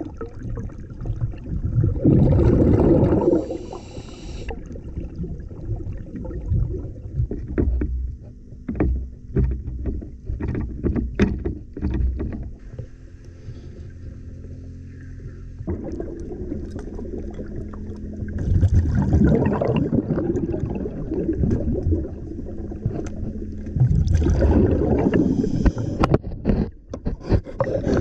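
Motorboat engine running steadily on the water, with louder surges of noise at times.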